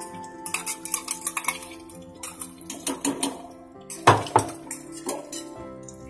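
A metal spoon scraping and knocking against a mixer jar as ground masala paste is emptied into an aluminium pressure cooker, with clinks and clanks of metal utensils on the pot, the loudest about four seconds in.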